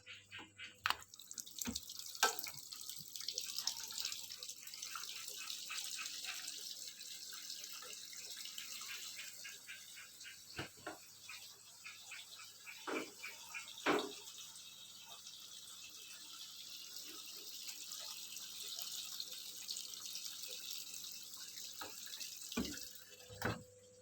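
Water running into the tub of a Sharp automatic washing machine as it fills, a steady rush that starts about a second in and cuts off just before the end, with a few scattered knocks along the way.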